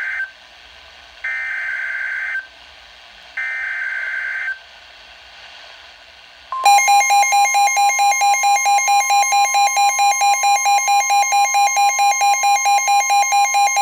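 NOAA Weather Radio alert coming through a Midland weather alert radio's speaker: the buzzy digital SAME header bursts, each about a second long and a second apart, the tail of one and then two more. About six and a half seconds in, the steady warning alarm tone starts, and over it the radio's own loud alert beeps rapidly, about five beeps a second, signalling a severe thunderstorm warning.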